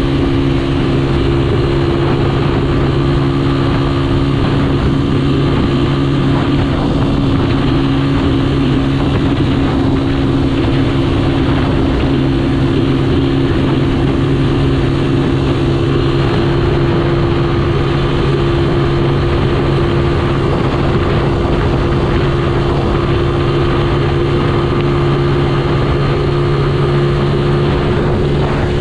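Motorcycle engine running at a steady cruise on the highway, its hum holding an even pitch, under a constant rush of wind and road noise.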